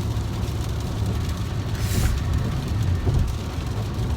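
Road noise inside a moving car in the rain: a steady low rumble of engine and tyres, with a brief swish about two seconds in.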